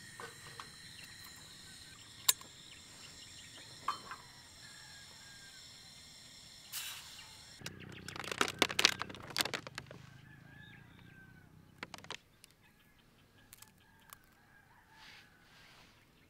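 Crinkling and crackling of a thin plastic clamshell food tray being pulled open, loudest about eight seconds in. A couple of sharp clicks come earlier, as a gas canister is handled on a small camping stove.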